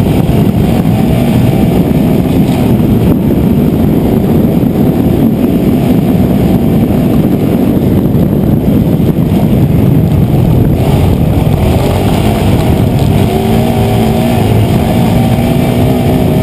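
Racing quad's engine heard close up from a handlebar-mounted camera, running hard under throttle through a lap. It is very loud, and the engine note rises and falls as the rider works the throttle, most clearly in the first couple of seconds and again near the end.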